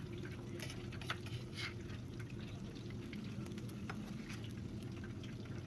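Quiet indoor room tone: a steady low hum with a few faint, scattered clicks and ticks.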